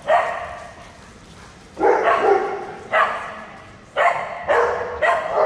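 Dogs barking: about eight sharp barks, one at the start and then a run of them from about two seconds in, each echoing in a large hard-floored hall.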